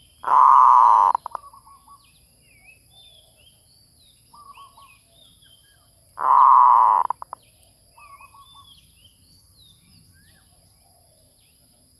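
Zebra dove (merbuk) lure call: two loud rapid staccato cooing trills, each about a second long and about six seconds apart, each ending in a few short notes. Softer, shorter cooing trills come in between, and small chirps of other birds are scattered throughout.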